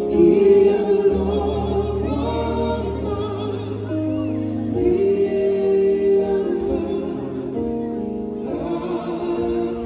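Live hymn singing in harmony over held keyboard chords and bass notes that change every second or two: a devotional hymn in the style of a Samoan family's evening prayer.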